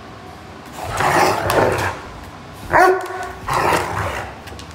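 A Giant Schnauzer and a bulldog tussling, with rough growling snarls in two bursts and one loud bark about halfway through.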